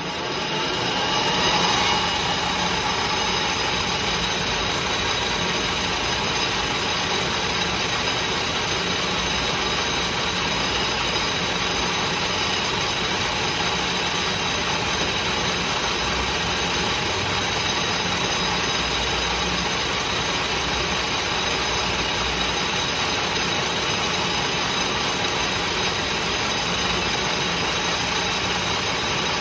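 Metal lathe running at high spindle speed, spinning an aluminium piston while an abrasive pad polishes the crown. It comes up to speed over the first couple of seconds, then runs steadily with a high whine over the running noise.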